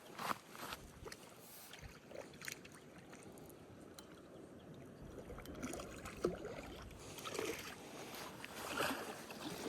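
Water splashing and sloshing in irregular bursts, with scattered small clicks and knocks.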